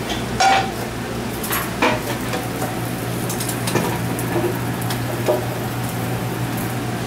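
Kitchen working sounds: a steady low hum under a light frying sizzle from pans on a gas range, with scattered clinks and knocks of pans and utensils.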